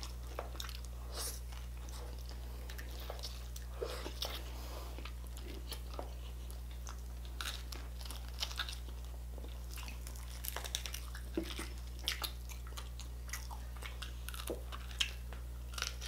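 Close-up chewing and crunching of crispy pata, deep-fried pork knuckle, with scattered crackles and wet mouth sounds as two people bite into it, over a steady low hum.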